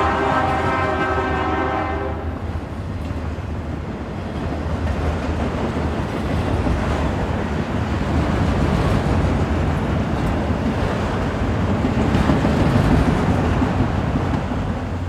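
A Nathan Airchime K3HL three-chime locomotive air horn ends its blast about two seconds in. The train then passes with a steady rumble and wheel-on-rail noise.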